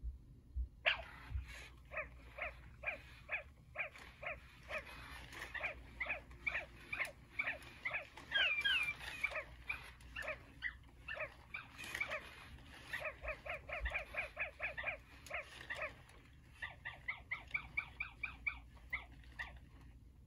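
Two Sony Aibo ERS-1000 robot dogs singing together during their synchronized dance: a rhythmic string of short electronic bark-like notes, two or three a second, that pauses briefly and then quickens near the end.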